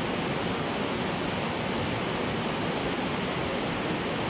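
Steady rush of a mountain river running high over rapids.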